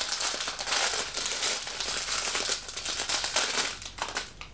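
Thin clear plastic wrapper crinkling as it is opened and pulled off a small stress ball, a dense crackle that eases off near the end.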